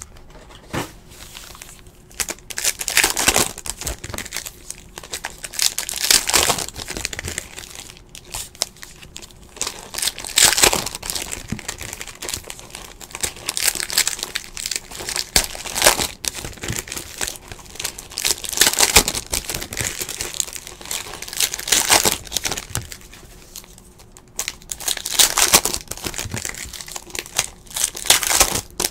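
2017-18 Panini Hoops trading-card pack wrappers being torn open and crinkled by hand, with louder bursts of crinkling every three to four seconds.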